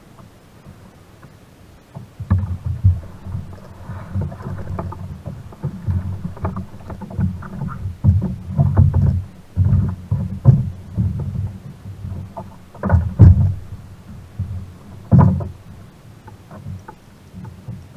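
Irregular low thumps and knocks on a plastic sit-on-top kayak's hull, carried through the camera mount as the paddler shifts his weight and gear on board, starting about two seconds in and loudest twice near the end. Light clinks of an anchor chain being handled come in at the very end.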